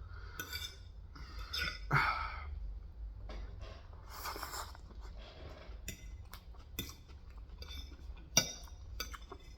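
Eating sounds of Korean fried chicken being chewed at close range, with scattered light clinks of dishes and cutlery.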